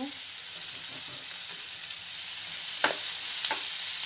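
Chopped onion and capsicum sizzling in hot oil in a frying pan, with a spatula stirring them; a few sharper scraping strokes of the spatula come near the end.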